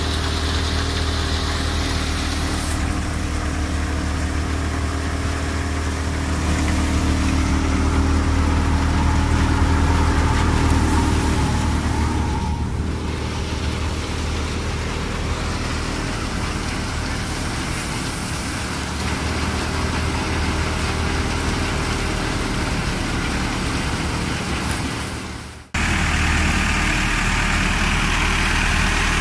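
Massey Ferguson 385 tractor's diesel engine driving a thresher through its PTO shaft, both running steadily under load. The sound drops out for a moment near the end and comes back.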